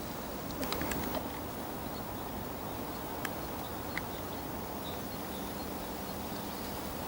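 Woodland ambience with birds calling over a steady background hiss, and a few light clicks.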